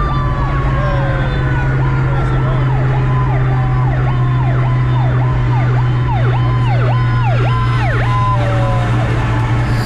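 Fire engine siren passing close by, yelping up and down about twice a second, with slower wailing tones sliding down in pitch. Under it runs the steady low drone of the 2003 Mustang Cobra's supercharged V8 cruising, heard from inside the cabin.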